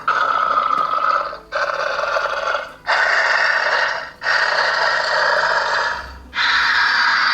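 Xenomorph hissing sound effects playing from the life-size figure's built-in speaker: a run of raspy hisses, each about one to one and a half seconds long, with short breaks between them.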